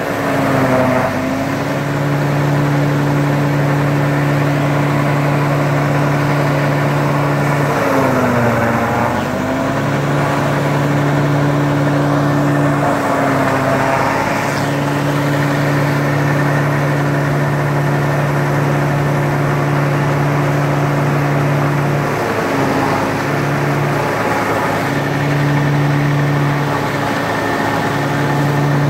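Sonalika 60 RX tractor's diesel engine running steadily at working speed while it drives a silage chopper. Its pitch sags and recovers three times: just after the start, about a third of the way through, and past three quarters.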